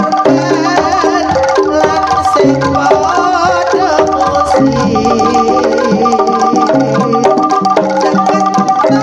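Loud live Javanese jaranan gamelan music through a sound system: struck metallophones playing short repeating note patterns over steady hand-drum strokes, with a wavering melody line riding above them.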